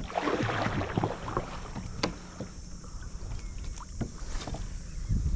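Kayak paddle splashing through the water for the first second or so, then a few sharp clicks as a spinning rod and reel are handled, with wind on the microphone.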